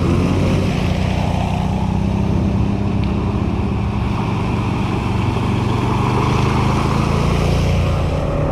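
ATV engine running steadily at low speed on a trail.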